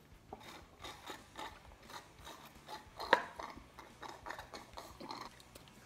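Close handling of a juice box and its plastic-wrapped straw: a run of crinkles, rustles and small clicks as the straw is unwrapped and pushed in, with the sharpest click about halfway through.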